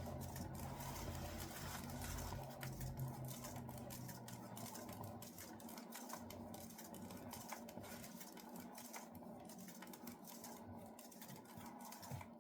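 A small motor hums faintly and stops about five seconds in, with light irregular clicks and taps throughout.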